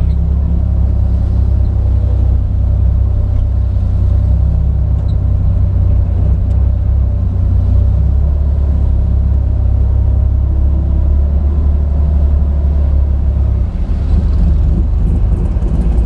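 Porsche 911 SC's air-cooled 3.0-litre flat-six running steadily at low revs while the car rolls slowly, heard from inside the cabin as a loud, low-pitched engine sound.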